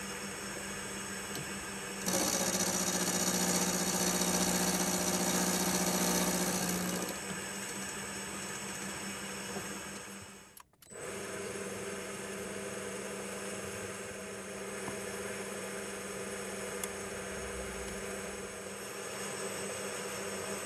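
Milling machine running with a steady motor hum. About two seconds in, a louder, busier machine sound joins for about five seconds, then falls back to the hum.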